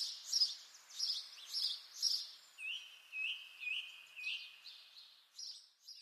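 Small birds chirping: a string of short high calls, roughly two a second, with a run of short hooked notes a little lower in pitch in the middle, over a faint steady hiss. The chirping stops just before the end.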